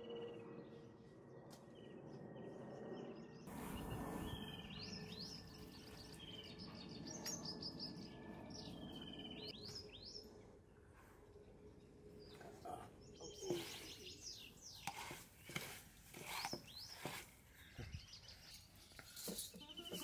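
Small birds chirping in quick, repeated short calls, with a run of soft clicks and knocks in the second half.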